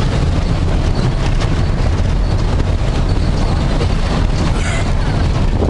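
Steady rumble of a vehicle's engine and tyres on a wet road, heard from inside the cabin while driving.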